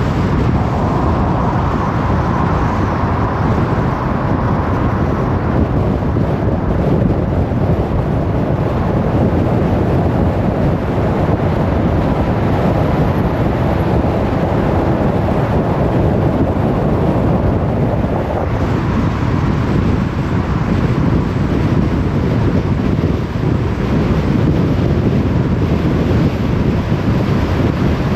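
Car driving along the road at steady speed: an even rush of tyre and wind noise with the engine underneath.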